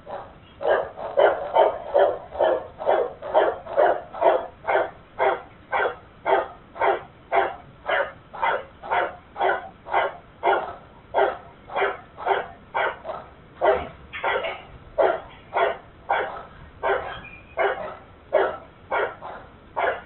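A dog barking over and over in a steady rhythm of about two barks a second, heard thin through a security camera's microphone.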